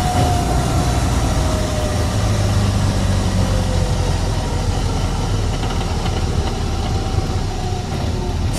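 Steady engine and road noise of a car driving along at speed, with a faint whine slowly falling in pitch.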